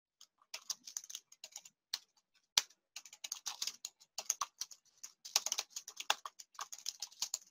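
Typing on a computer keyboard: a quick, irregular run of key clicks starting under a second in, with one louder keystroke about two and a half seconds in.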